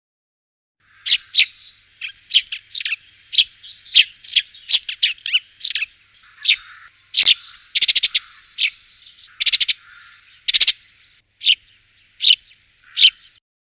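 Small bird calling: a string of short, sharp chirps, some in rapid stuttering clusters, starting about a second in.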